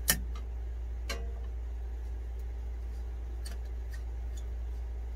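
Sharp click of tools on the converter's wiring terminals, a second click about a second later, then a few faint ticks, over a steady low hum.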